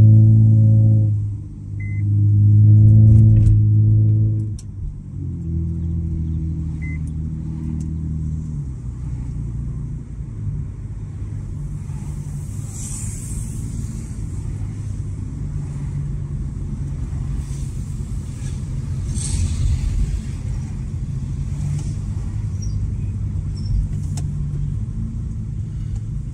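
Honda Accord 3.5-litre V6 with its muffler deleted: the exhaust gets loud twice under throttle in the first four or so seconds, then settles into a steady, lower drone as the car cruises.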